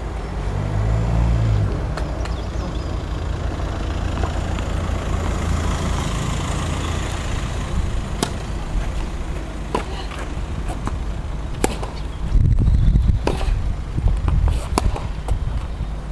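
Tennis ball struck by racquets in a rally: sharp single pops every second or two from about halfway through, over a steady low rumble.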